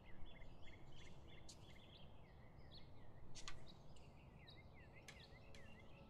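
Faint birdsong, short chirping notes repeating over a low background hiss. A few sharp taps come through, the loudest about three and a half seconds in, as cards are handled on a table.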